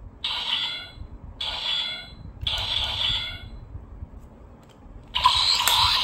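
DX Raising Sword toy sword's electronic speaker playing three short sound effects about a second apart, then, about five seconds in, a louder sustained sound effect begins.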